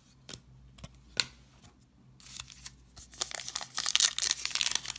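Foil trading-card pack wrapper crinkling and tearing as it is pulled open by hand, starting a little past two seconds in and growing to a dense crackle near the end. A few light clicks of cards being handled come before it.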